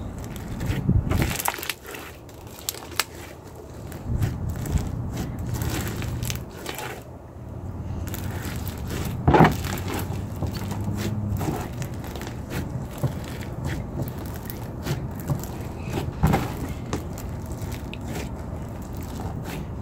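Slushy slime full of plastic slushy beads being mixed and squished by hand, crunching and crackling irregularly, with a couple of sharper snaps.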